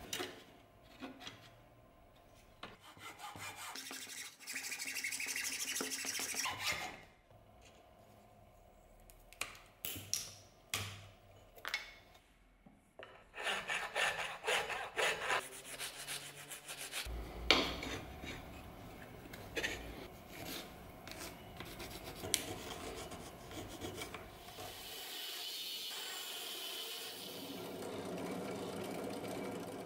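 Work on wooden handle scales: a hacksaw cuts through the wood in runs of back-and-forth strokes with short pauses, and a hand file rasps across the wood. Near the end a drill press runs steadily as a step drill bores into a wood block.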